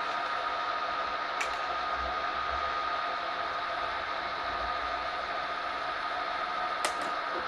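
Vertical milling machine running steadily, a constant motor hum with a thin high whine. Two small metallic clicks come about a second and a half in and again near the end.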